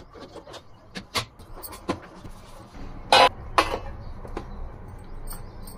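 A lunchbox's clip-on lid latches click open, then a stainless steel tray clatters and knocks on a wooden board, with the soft rustle of a flatbread being laid in. The loudest clatter comes a little past the middle.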